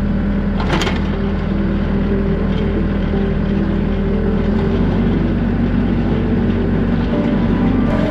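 Tractor engine running steadily, with one short click about a second in.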